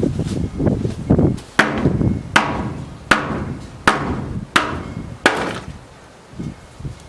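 Hammer striking nailed-in wooden barn boards: six evenly spaced blows about three-quarters of a second apart, each ringing briefly, after some rustling and handling noise.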